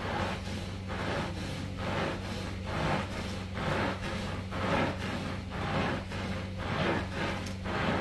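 Carpet-cleaning extraction wand being stroked over carpet: a hissing surge of suction swells and fades about once a second with each stroke, over a steady low machine hum.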